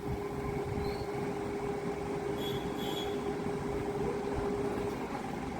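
Steady background noise with a steady low hum running under it; the hum cuts off near the end.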